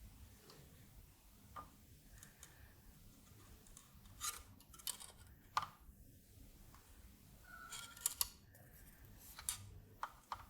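Small sharp clicks and ticks from hand-soldering switch lugs, coming in little clusters about four, eight and ten seconds in, over quiet room tone.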